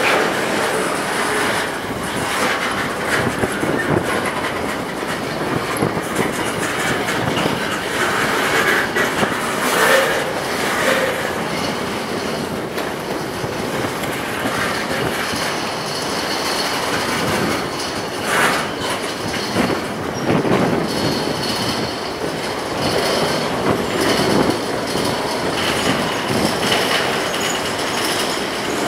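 Norfolk Southern freight train's cars rolling past, steel wheels clattering steadily over the rails with irregular knocks and a faint high wheel squeal at times.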